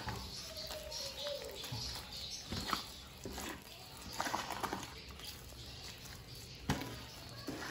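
A hand squishing and kneading a wet, gritty beak-stone mix of clay, bird sand with shell grit and charcoal, and soda water in a plastic bowl. It comes as irregular squelches and gritty scrapes.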